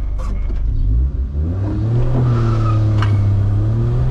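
Chrysler K-car's engine revving up: its pitch rises about a second in and then holds higher and steady as the car accelerates.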